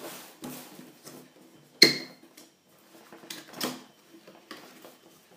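Cardboard box being opened by hand: the lid tab and inner flaps pulled and folded back in a series of scrapes and clicks, with one sharp snap about two seconds in as the loudest sound.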